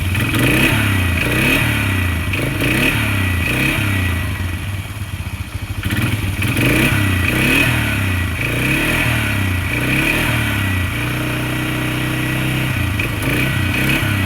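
Polaris Magnum 330 ATV's single-cylinder four-stroke engine running and being revved repeatedly, the pitch climbing and falling with each blip of the throttle, then settling to a steady idle near the end. It runs smoothly after a new carburetor, belt and fixed choke, where before it would barely run.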